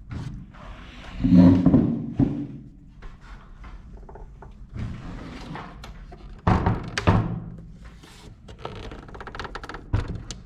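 Clunks, knocks and rattles of a desktop PC's drive bay being pulled and worked by hand inside the open case, with two louder bouts of handling, one about a second in and one past the middle. The part is stuck and not coming free.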